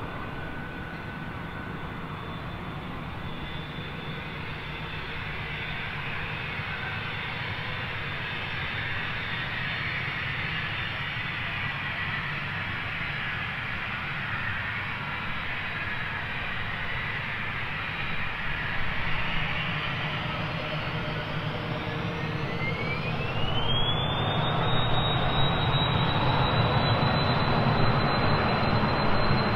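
Twin turbofan jet engines of a Cessna 560 Citation Encore whining at low taxi power, the rush slowly growing louder. About three-quarters of the way through, a whine climbs steeply in pitch and then holds a high steady tone: the engines spooling up toward takeoff power, and the sound grows louder still.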